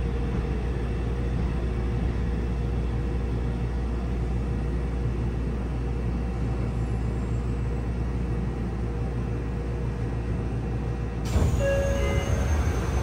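Steady hum inside a Yokohama Municipal Subway 3000R carriage standing at a station platform. It is the car's onboard equipment running while the train is not under power. About eleven seconds in, a few higher ringing tones come in over the hum.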